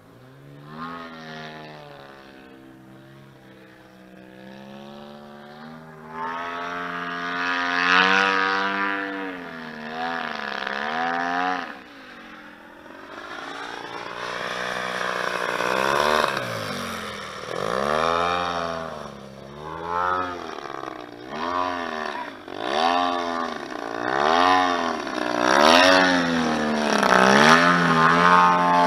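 DLE-111 twin-cylinder two-stroke gas engine of a large Pilot Edge RC aerobatic plane in flight, its pitch rising and falling over and over, faint at first and loud near the end as the plane comes close.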